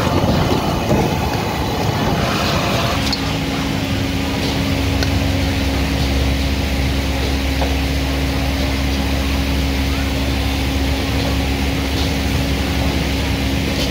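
Commercial gas wok burner running at high flame, with vegetables and seafood sizzling in the wok as they are stirred. About three seconds in, the sound shifts to a steadier hum with a constant low tone.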